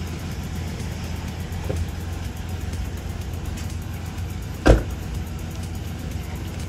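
GMC pickup's door slamming shut once, a sharp thud about two-thirds of the way in, over a steady low rumble.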